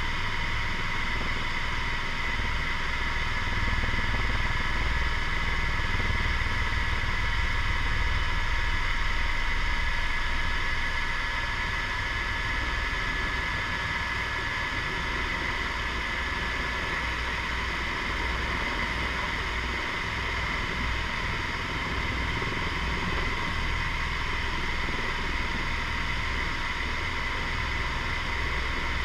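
Helicopter turbine whine over a low rotor rumble, heard from inside the cabin as the helicopter comes in to land. The sound is steady, a little louder for several seconds near the start.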